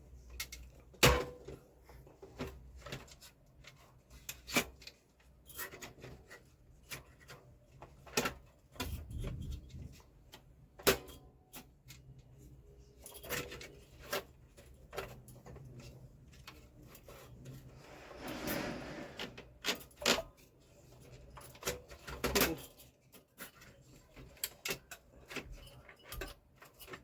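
Scattered clicks, taps and rubbing of plastic parts as a replacement clutch gear is fitted into a Canon LBP 2900 laser printer, with a sharp click about a second in and a longer scraping rub around eighteen seconds in.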